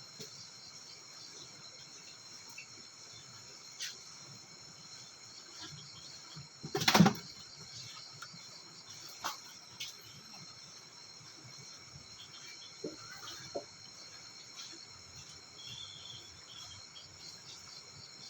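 Insects chirring steadily in high, even tones. A single loud thump comes about seven seconds in, with a few faint clicks scattered through.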